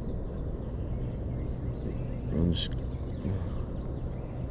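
River-side outdoor ambience: a steady low rumble, with a faint high, steady insect drone. About halfway through comes a short pitched sound like a voice or call, then a sharp click.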